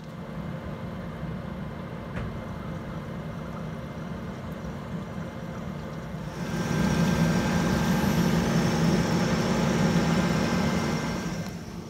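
Evaporative (swamp) cooler switched on and running, a steady motor hum with a rush of air, a sign that its repaired wiring works. About halfway through the hum and air rush get louder, close up at the pad grille, then ease off near the end.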